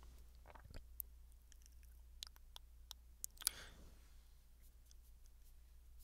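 Faint mouth clicks and lip smacks made at a distance from the microphone: a scattering of small sharp ticks over the first three and a half seconds, with a short breathy sound near the middle. The booth is quiet enough that these tiny sounds stand out clearly.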